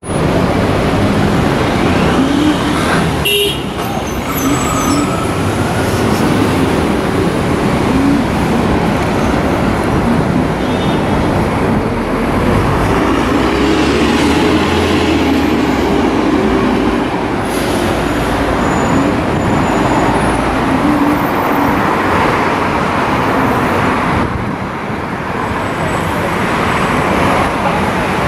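Steady city street traffic noise from passing cars and buses, with some voices of passers-by mixed in.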